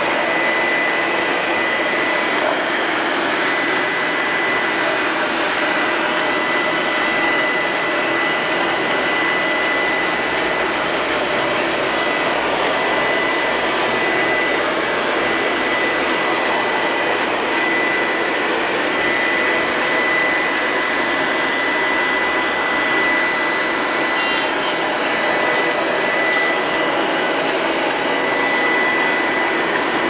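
LL-283 (Q5) robot vacuum cleaner running: a steady whir with a thin, high-pitched whine on top.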